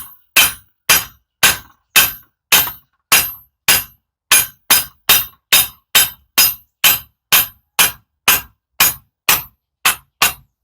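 Steady hammer blows on a steel pipe used as a drift, knocking a heated bearing and gear off a Toyota MMT gearbox shaft. Sharp metallic strikes, about two a second and getting slightly faster, each with a short ring.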